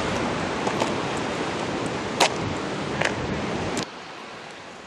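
River water rushing over a low weir and through its stone piers, a steady loud whoosh with a few sharp clicks, the loudest about two seconds in. It cuts off abruptly shortly before the end, leaving a much quieter steady hiss.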